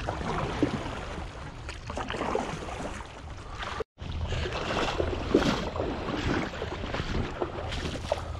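Kayak paddle strokes dipping and splashing in a shallow river. After a brief cut, splashing footsteps of a wader walking through shallow water.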